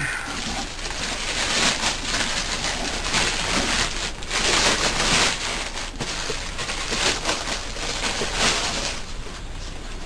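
Clear plastic bag crinkling and rustling in irregular flurries as it is handled around a heavy drill press head.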